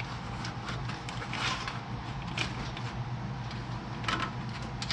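Hood release cable being pulled by hand through its grommet: scattered rubbing and scraping, with several brief louder scrapes, over a faint steady hum.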